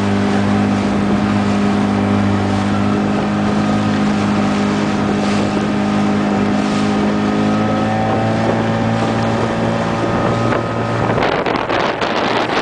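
Motorboat outboard engine running steadily, its pitch rising slightly about two-thirds of the way through. Near the end the engine note drops away, leaving wind buffeting the microphone and water noise.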